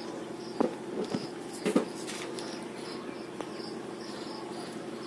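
A few soft clicks and rustles of a wire being worked into a scooter's wiring-harness socket, mostly in the first two seconds, over a steady background chirring with a faint high chirp repeating about twice a second.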